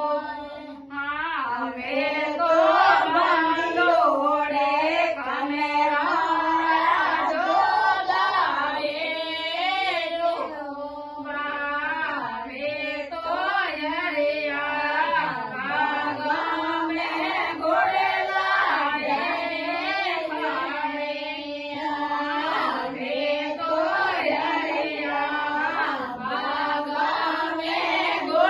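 A woman singing a Marwari devotional song (harjas), the melody held and wavering in long sung lines.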